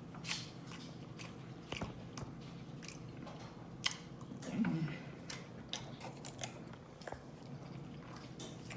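Close-miked eating: a person chewing a mouthful of food loudly, with scattered wet smacking clicks of the mouth and a short hummed 'mm' about four and a half seconds in.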